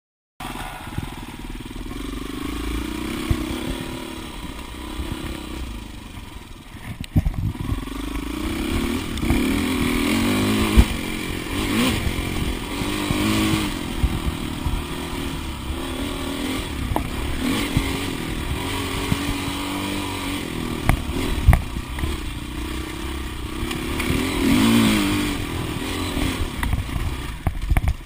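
2008 Husqvarna TXC 450 single-cylinder four-stroke dirt bike engine, heard close up, revving up and falling back over and over as it is ridden along a rough dirt trail. A few sharp knocks and clatter from the bike over bumps.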